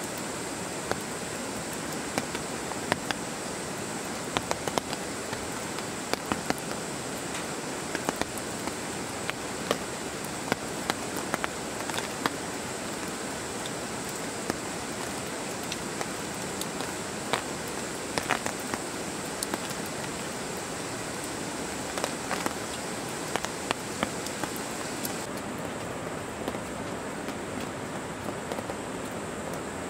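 Steady rain falling on a tent, a hiss with scattered sharp ticks of single drops.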